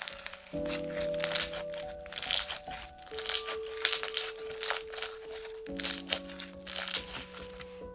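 Thick slime worked by hand, making many quick crackling, popping clicks, over background music with long held notes.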